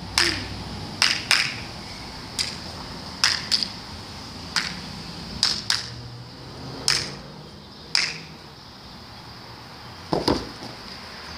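A light football being tapped along with the foot while dribbling: a series of sharp taps, roughly one a second, with a heavier thump about ten seconds in. A steady high hiss runs underneath.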